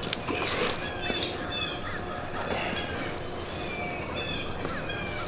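Birds calling outdoors, many short chirps and whistled notes overlapping. Two brief, soft noises come about half a second and just over a second in.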